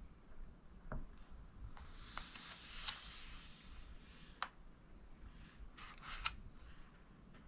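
Pencil writing on paper: faint scratching strokes with a few sharp ticks as the lead meets the page, and a longer stretch of scratching near the middle.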